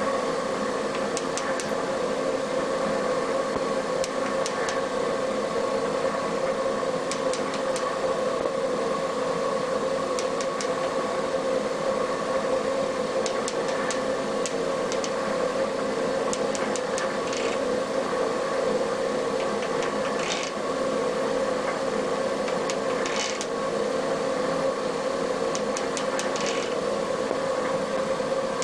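Klopp metal shaper running steadily, its drive humming as the ram strokes back and forth, with a few faint ticks scattered through. The single-point tool is taking a very light skim cut across the flat of a Wilton bullet vise, only just catching the high end.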